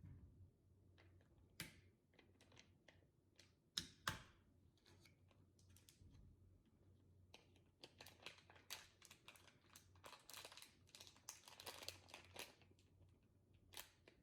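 Slime being squeezed and worked by hand: quiet, irregular clicks and crackles, with two sharper snaps about four seconds in and a denser run of crackling in the second half.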